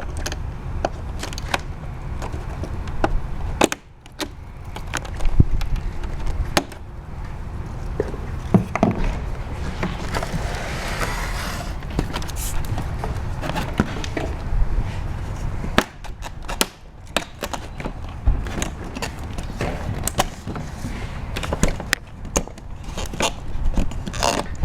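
Irregular clicks, knocks and scraping of hard plastic as a broken, cut-free door pull is wiggled and worked inside a VW New Beetle door panel, still held fast by its gussets, with a longer scraping stretch about ten seconds in.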